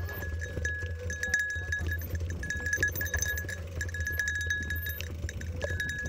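Mountain bike rolling down a rough dirt trail: a steady high metallic ringing that keeps breaking off, with frequent clinks and rattles, over a low rumble of tyres and wind.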